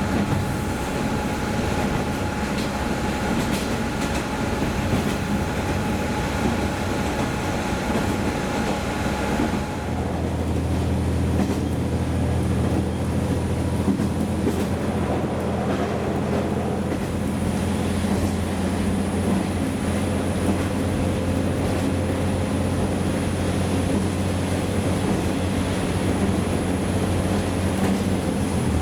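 A train running along the rails. About ten seconds in the sound changes: the higher steady tones drop away and a strong low hum takes over, with a faint high whine joining later.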